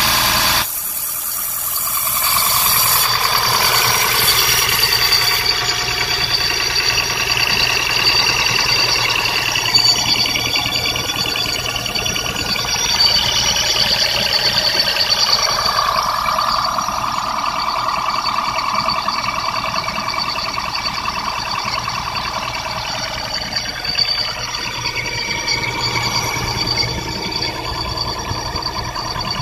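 Honda Fit Hybrid's transmission making an abnormal whine: several steady high tones that slowly drift and swell over a mechanical hum. The noise came on a very cold morning and was cured by replacing the transmission, which marks it as a transmission fault.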